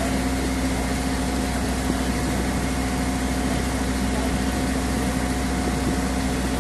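A motorboat's engine running steadily while under way, a constant even hum.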